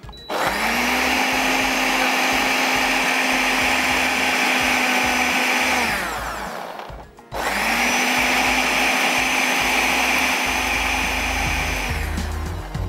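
Countertop electric blender run twice, about five seconds each with a short pause between. Each time the motor spins up to a steady whir and winds down. It is grinding a thick chutney of onion, chilies and greens with no water added, in short bursts.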